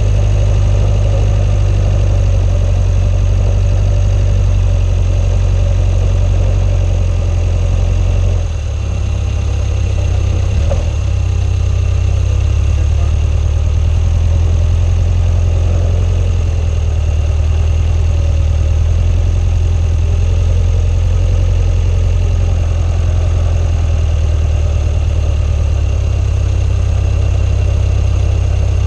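Swamp buggy's engine running steadily while the machine drives on its low-pressure tires, a loud deep drone. The low note shifts and the level dips briefly about eight and a half seconds in.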